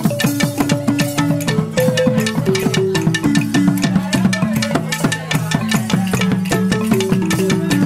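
Dagara gyil (wooden xylophone) playing Bawa dance music: a fast stream of struck wooden bars, with melodic runs that step downward over a repeating low pattern.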